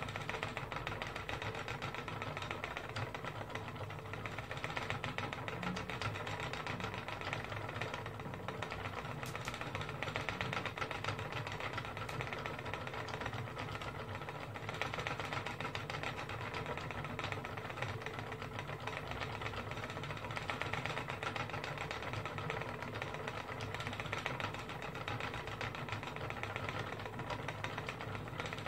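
Wooden spinning wheel running steadily as it is treadled, a continuous stream of fast fine ticks and clatter from the turning wheel and flyer.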